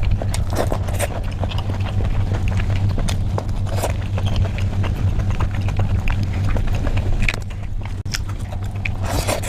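Eating sounds: irregular wet clicks and smacks of chewing, over a steady low hum.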